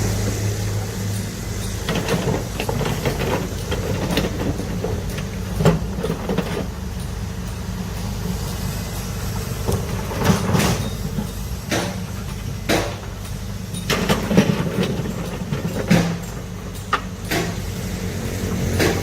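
Heavy diesel construction machinery running with a steady low rumble, with sharp clanks and knocks at irregular intervals.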